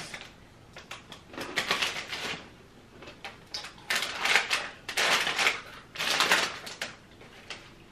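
Crinkly snack-chip bag rustling and crackling in several short bursts as it is opened and handled.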